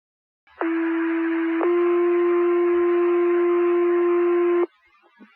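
Two-tone sequential fire pager alert over the dispatch radio channel: a tone of about one second, then a slightly higher tone held for about three seconds, with radio hiss underneath. It is the tone sequence that sets off the volunteer firefighters' pagers for the second page.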